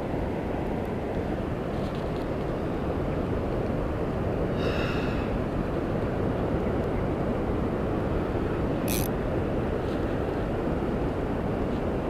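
Steady rumble of wind buffeting the camera microphone. A brief higher-pitched sound comes about five seconds in, and a short sharp click just before nine seconds.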